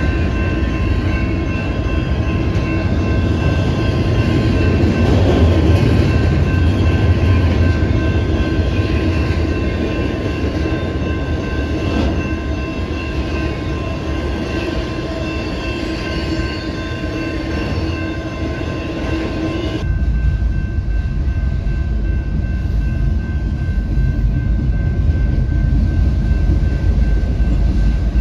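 A train running past on the rails: continuous rail and train noise with several steady high tones. About twenty seconds in, the sound changes abruptly to a deeper, lower noise with less treble.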